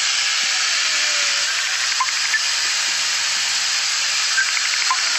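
Angle grinder converted into a small chainsaw, its bar and chain running at high speed and cutting through a tree branch: a loud, steady hiss.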